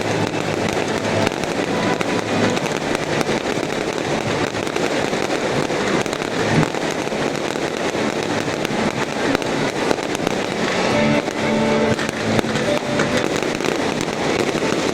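Fireworks display going off: a dense, unbroken run of rapid bangs and crackling. Music can be heard again through the crackle in the second half.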